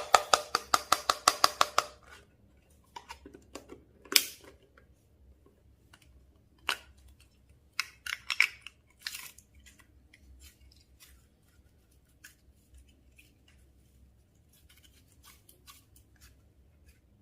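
Close-up slime-and-makeup handling: a quick run of sharp clicks, about eight a second for roughly two seconds, then scattered single clicks and small crackles.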